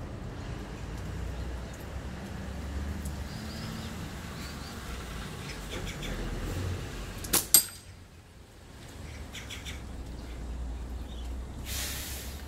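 A slingshot shot: two sharp cracks about a quarter second apart, a little past the middle, over steady rain noise. A short rush of hiss follows near the end.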